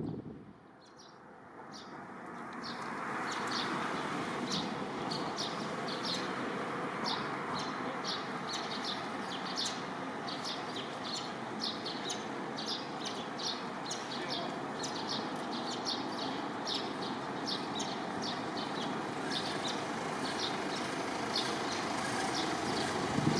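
Small birds chirping rapidly and continuously, several short high chirps a second, over a steady background hiss.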